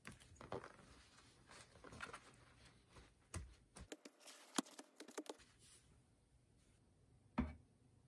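Soft, scattered rustles and taps of hands patting a damp tissue onto denim jeans, ending with a single louder thump about seven seconds in.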